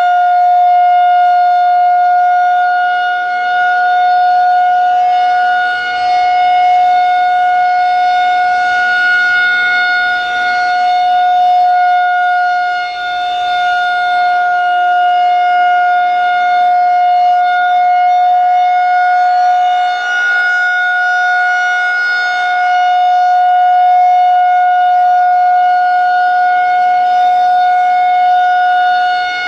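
Federal Signal 2001-130 outdoor warning siren sounding a loud, steady alert tone, its volume swelling and dipping every few seconds as the rotating siren head turns.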